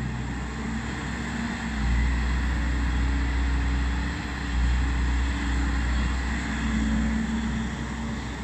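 Volvo EC210B crawler excavator's six-cylinder diesel engine running with a deep, steady rumble. It grows louder about two seconds in and again about four and a half seconds in.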